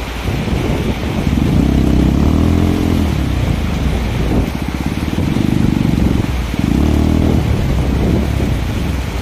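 Commuter motorcycle's small single-cylinder engine labouring up a rough, rocky dirt track, the throttle opened and eased off so that it revs up in about three bursts.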